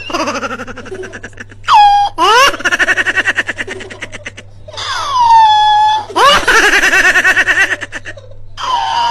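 Loud laughing in rapid ha-ha pulses, broken by several high whooping cries that slide up and down in pitch.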